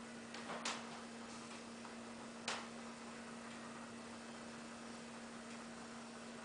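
Faint steady low hum with two short clicks, one just under a second in and a sharper one about two and a half seconds in.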